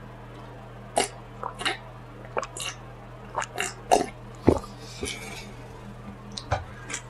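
A person chewing food close to the microphone, with a run of short, irregular mouth smacks and bites starting about a second in. A low steady hum runs underneath.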